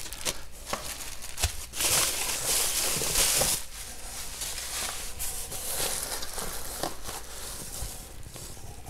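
Plastic wrapping crinkling and rustling as it is pulled off a new clutch assembly in a cardboard box. It is loudest for about a second and a half, about two seconds in, then turns to softer handling with a few light knocks.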